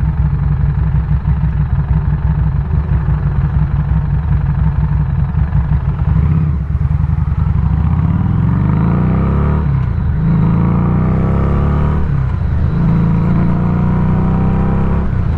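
Harley-Davidson Street 500's V-twin engine running at road speed, then easing off briefly and pulling up through the gears: the engine pitch rises and drops back at each of three upshifts.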